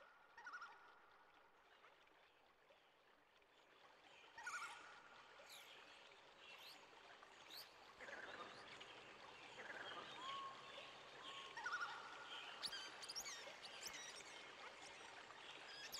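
Faint outdoor ambience: wild birds chirping and whistling now and then over a soft steady hiss, a little louder from about four seconds in.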